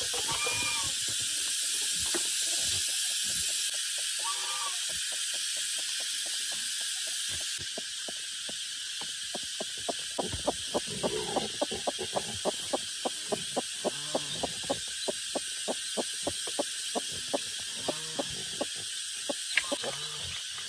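A few short animal calls over a steady high hiss, and from about halfway a quick run of sharp clicks, about two a second.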